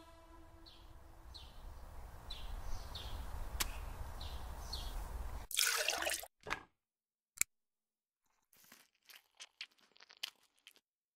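A low rumble, then milk poured from a plastic jug into a glass: a short burst of splashing about five and a half seconds in, followed by a click and scattered short wet sounds.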